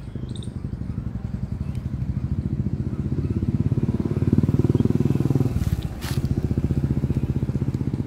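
Royal Enfield Classic single-cylinder engine running through a Red Rooster aftermarket exhaust, with a rapid even beat. The throttle opens and it grows louder over the first few seconds. It drops off sharply about five and a half seconds in, then picks back up to a steady beat.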